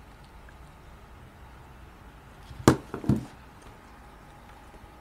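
Two sharp knocks about half a second apart, as an iPhone is set down on a wooden desk, over faint steady room hum.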